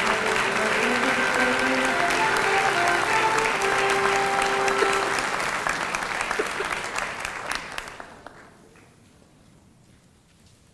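Audience applauding steadily, then dying away about eight seconds in.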